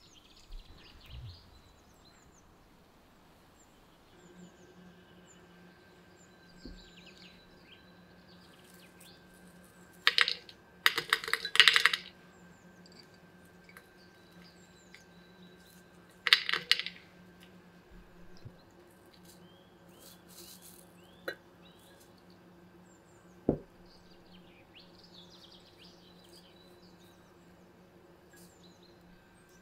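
Dried flowers, rosebuds and loose tea dropped into a glass teapot, rattling and clinking against the glass in two loud clusters about ten and sixteen seconds in, with a few single taps later. A faint steady hum runs underneath.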